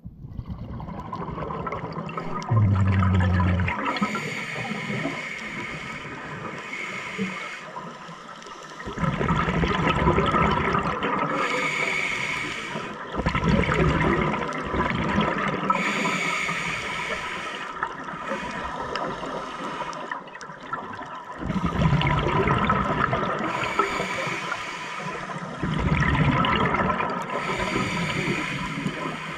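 Scuba diver breathing through a regulator underwater: hissing inhalations alternating with rumbling bursts of exhaled bubbles, several breaths in a row.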